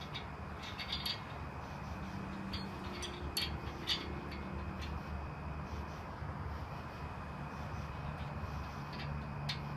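Scattered light clicks of a washer and nut being fitted onto the bolt through an engine crane's boom, over a steady low hum.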